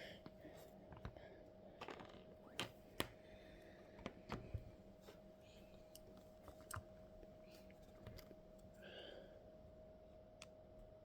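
Irregular light clicks and taps of small parts being handled, over a faint steady hum.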